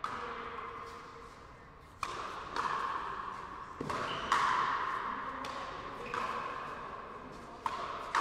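Frontenis rally: a hollow rubber ball cracking off rackets and the frontón's front wall, about eight sharp hits at uneven intervals, each ringing on in the hall's echo.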